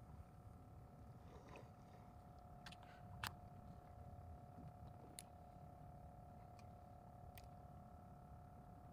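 Near silence: a faint steady hum with a few soft, scattered clicks, the clearest about three seconds in.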